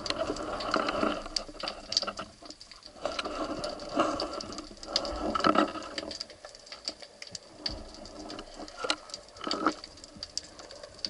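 Underwater sound picked up through a waterproof camera housing: scattered sharp clicks and crackling, with muffled swishes of water from the diver's movement that swell and fade several times.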